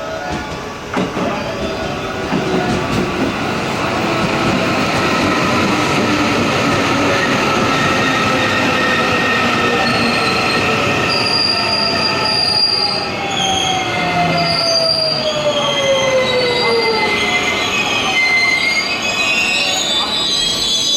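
Electric train pulling into the station and braking: its motor whine falls steadily in pitch, and high brake and wheel squeals sound over the second half as it slows.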